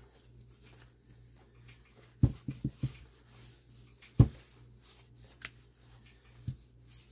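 Handling noise from wiping Sony WH-1000XM4 headphones with a tissue: faint rubbing and several soft knocks, a quick run of four about two seconds in and the loudest one about two seconds after that, over a low steady hum.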